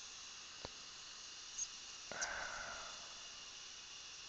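Faint steady hiss of a dental micro-suction tip at the implant opening. There is a light click just under a second in, then a short rush of noise about two seconds in that fades away over about a second as fluid is drawn off.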